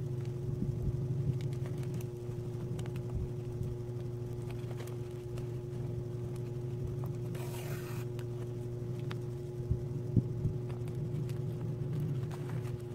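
Steady low background hum, with a woven plastic sack rustling now and then as it is handled and hand-stitched, including one louder rustle about halfway through and a few light ticks near the end.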